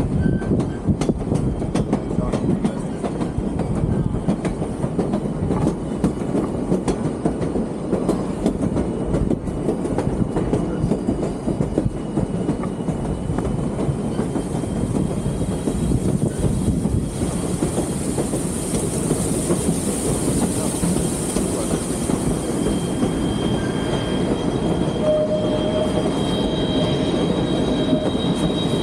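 Narrow-gauge White Pass & Yukon Route passenger train rolling along the track, heard from on the car: a steady rumble of steel wheels on rail with sharp clicks at the rail joints. In the last few seconds, thin high squeals of wheel flanges come in as the train takes a curve.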